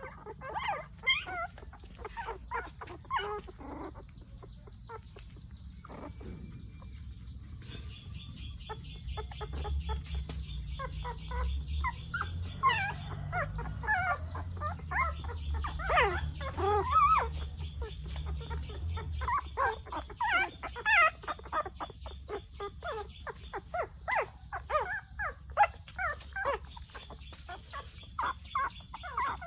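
Puppy crying: short, high-pitched whining cries repeated over and over, sometimes overlapping, with gaps between bouts.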